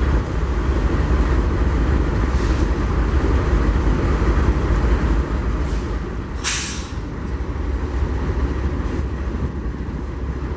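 A GE C44-9W diesel locomotive idling with a steady low rumble. Its air system lets out one short, sharp hiss of released air about six and a half seconds in.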